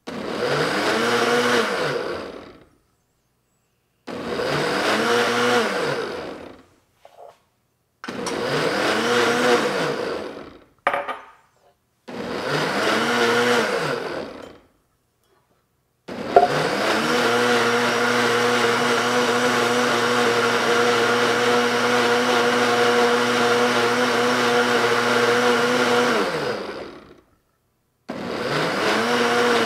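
Ninja Foodi Hot & Cold Blender blending eggnog on its smoothie program. The motor runs in four short bursts of about two and a half seconds with short pauses between them, then runs steadily for about eleven seconds, and starts again near the end. Each run rises in pitch as the motor spins up and falls as it winds down.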